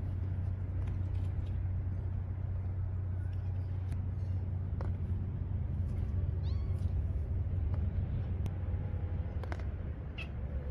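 Young kittens, eyes newly opened, giving a few short high-pitched mews, one around the middle and one near the end, over a steady low rumble.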